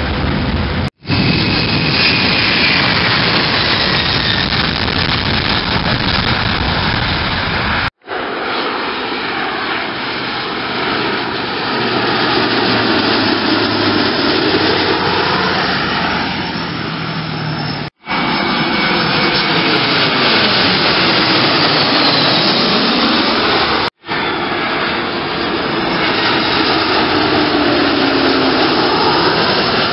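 Airliner engine noise from several takeoffs and low approaches, spliced together with four brief dropouts between them. Each stretch carries sweeping tones that bend down and back up as the aircraft passes.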